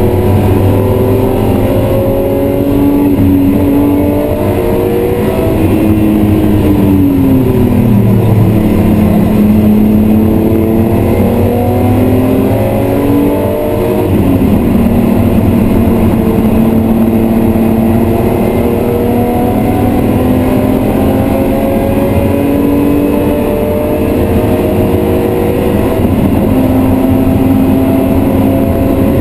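BMW E36 M3's 3.0-litre straight-six engine heard from inside the cabin under hard track driving. The revs climb, fall away about seven seconds in, climb again with a sharp drop around fourteen seconds in at a gear change, then rise and settle near the end.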